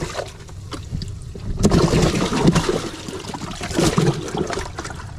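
Water splashing and sloshing in a bass boat's livewell as hands reach in and grab bass, in irregular bursts that are busiest in the middle.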